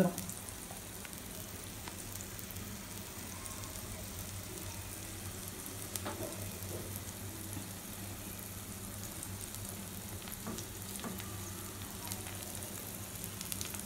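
Vegetable kuzhi paniyaram frying in oil in the hollows of a paniyaram pan: a steady, soft sizzle, with a few faint ticks.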